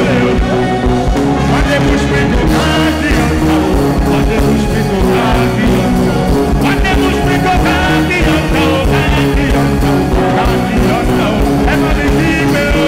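Live band music with a steady beat and singing over it.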